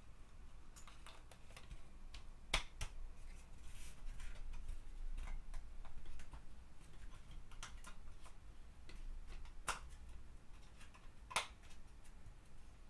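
Irregular small clicks and taps of a wooden paint rack's tabs being pressed and nudged into their slots by hand, with a few sharper clicks, the loudest about two and a half seconds in.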